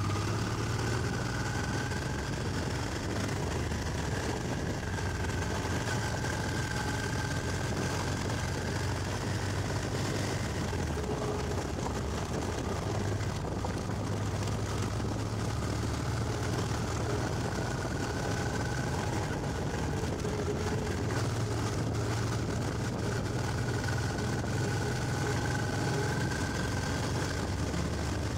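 1995 Honda Transalp XL600V's V-twin engine running steadily at low road speed, with wind and riding noise over it.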